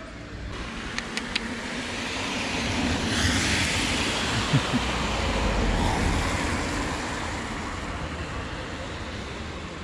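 A car passing close by, its tyre and engine noise swelling to a peak midway and then slowly fading. A few sharp clicks sound about a second in.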